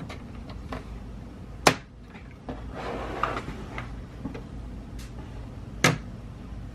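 Plastic screen bezel of an ASUS X555L laptop being pried off by hand, its snap clips letting go with two sharp clicks, one about a second and a half in and one near the end. Between them come smaller clicks and a stretch of plastic scraping.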